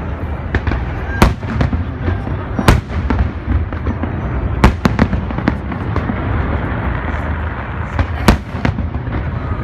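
Fireworks display: aerial shells bursting in a continuous rumble and crackle, with several sharp, loud bangs standing out above it.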